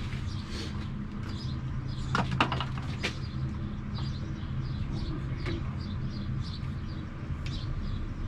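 Electric motor of a Mercury outboard's power trim pump running steadily with the 'up' button held, building hydraulic pressure behind a stuck trim-ram piston.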